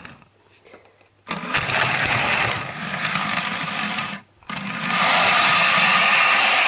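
Battery-powered Thomas the Tank Engine toy train's small electric motor and wheels running on plastic track with a steady whirr. It starts suddenly about a second in, cuts out briefly around four seconds in, and comes back louder and steadier.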